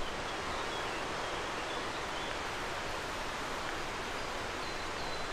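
Steady rushing of a mountain stream, an even wash of water noise at a constant level.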